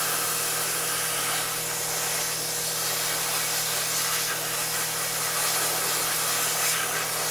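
Hot air rework tool blowing a steady hiss of air onto a flight controller board to heat it.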